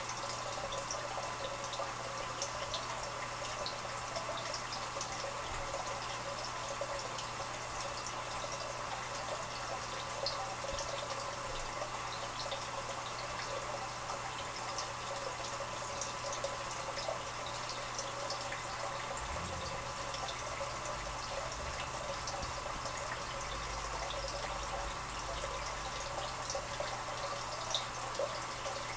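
Aquarium water trickling and bubbling steadily, with tiny scattered drips and bubble pops, over a steady low hum from the tank's equipment.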